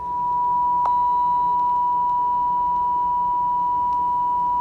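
Television colour-bar reference tone: a single steady, high-pitched sine tone that swells in quickly at the start and then holds unchanged, with a faint click about a second in.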